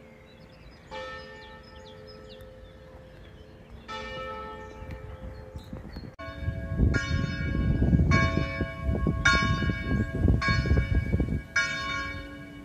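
Church bell tolling, single strokes about three seconds apart. About six seconds in the sound changes abruptly: the strokes come louder, about once a second, over a low rumble.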